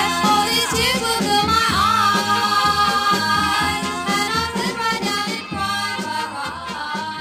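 An early-1960s vocal-group record playing: the band backs singing in which no clear words are heard. It slowly fades down in the second half.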